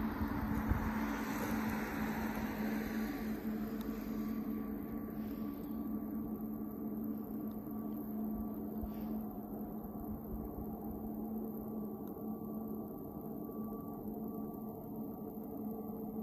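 Distant jet airliner taxiing, its engines at idle giving a steady low hum. A broad rushing noise fades away over the first few seconds.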